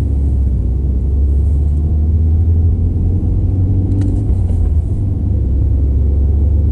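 Mercedes W203's naturally aspirated engine running through a Supersprint rear and middle silencer exhaust while driving, a steady low rumble with no revving.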